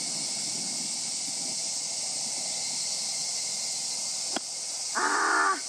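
A golf wedge strikes bunker sand once about four seconds in, a single short sharp hit, over a steady high drone of insects. A short voiced exclamation follows right after the shot.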